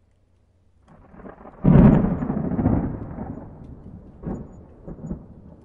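Sound effect for an animated fireball logo intro: a brief swell breaks into a sudden deep fiery burst about a second and a half in, then rumbles away with a few smaller flare-ups near the end.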